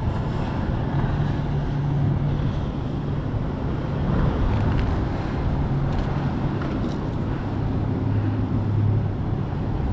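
Steady wind noise on the microphone over the wash of surf, with a low steady hum underneath.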